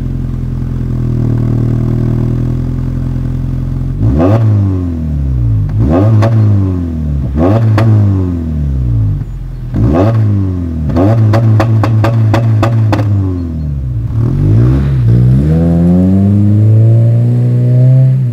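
Toyota Camry 2.5 inline-four breathing through a custom exhaust with a 4-2-1 header and Helmholtz resonators: it idles steadily, then is revved in a string of throttle blips, each rising and falling in pitch. A quick run of sharp cracks comes about two-thirds of the way through, and a longer rev climbs near the end.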